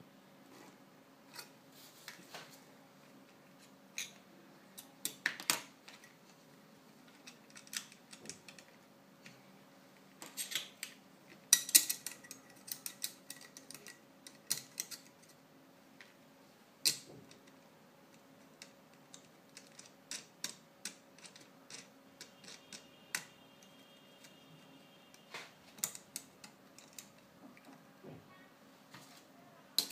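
Irregular metallic clicks and clinks as a fixed-angle knife sharpener's steel clamp, screws and guide rod are handled and a knife blade is fitted and taken out, with a louder flurry of clinks near the middle. A faint steady hum lies underneath.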